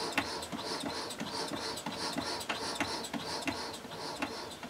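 Hand-turned model beam engine's cylinder breathing, running without steam: air hisses in and out with each stroke about three times a second, with light clicks from the moving parts. It pulls good vacuum and suction even before any gaskets are fitted.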